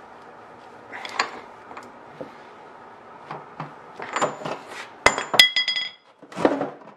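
Long-handled ratchet on a front axle nut, clicking in short bursts as the handle is swung back and forth. About five seconds in come two sharp metal clinks that ring on briefly, as the tool comes off the nut.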